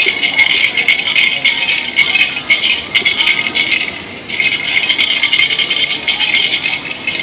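Fast, continuous rattling of a shaken percussion rattle, stopping briefly about four seconds in and then starting again.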